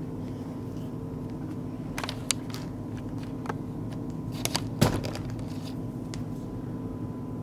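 A few light clicks and taps of hard plastic LEGO pieces being handled and set down on a table, the sharpest about five seconds in, over a steady low electrical hum.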